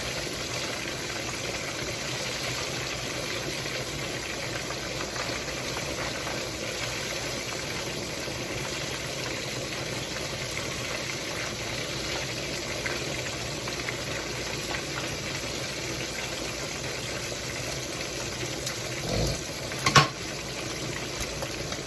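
Fish deep-frying in hot oil: a steady bubbling sizzle. Near the end a low thump and then a sharp clack.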